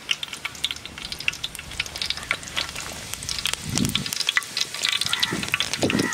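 Finely chopped shallot frying in hot oil in an aluminium pot, sizzling with a steady patter of small pops and crackles. There are two low muffled bumps near the end.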